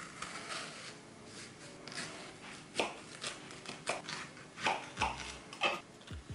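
Kitchen knife cutting leeks on a plastic cutting board: a few sharp knocks of the blade against the board among faint crunching and rustling of the leaves as they are handled.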